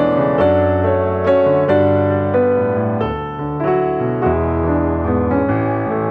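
Background piano music, a slow melody of single notes over held chords.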